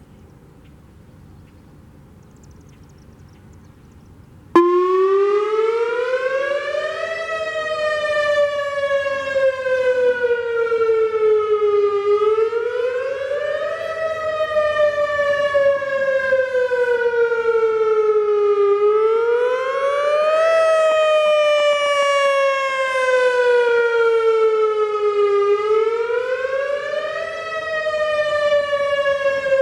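Whelen WS-2000R electronic tornado siren, with a rotating speaker array, starting its test sounding abruptly about four and a half seconds in. It wails up and down in pitch, rising quickly and falling slowly, with one cycle roughly every six to seven seconds.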